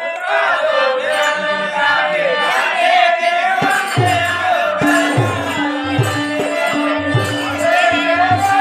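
Live music for an Indian stage drama: a singer's wavering voice over the held tones of a harmonium, joined about four seconds in by a hand drum keeping a steady beat of roughly two strokes a second.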